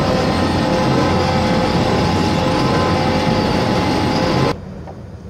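Twin-shaft mixer drive of a mobile concrete batching plant running: Siemens electric motor and belt-driven pulley giving a loud, steady mechanical hum with several steady tones over a low rumble. It cuts off abruptly about four and a half seconds in.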